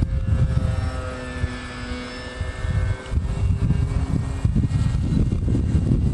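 Distant small propeller plane's engine droning in flight, its tone fading out about four and a half seconds in as it flies away. Wind buffeting on the microphone runs underneath and grows stronger near the end.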